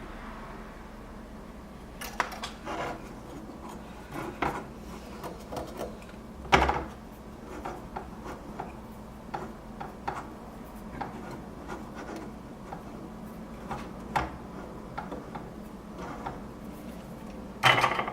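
Scattered light clicks, taps and scrapes of small hand tools and a circuit board being handled on a workbench, over a faint steady hum. A sharper knock comes about six and a half seconds in, and a busier patch of scraping near the end.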